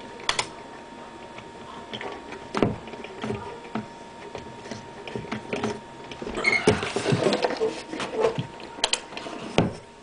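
Scattered clicks, knocks and rustling over a faint steady high tone, busiest from about six and a half to eight seconds in.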